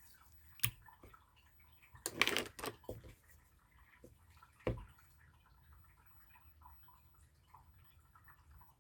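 Clear slime being handled: a sharp wet pop about half a second in, a cluster of sticky, wet crackling pops around two to three seconds, another pop near five seconds, and faint small crackles in between.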